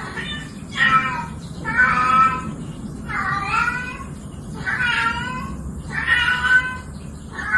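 A cat meowing over and over: about six drawn-out meows, one every second or so.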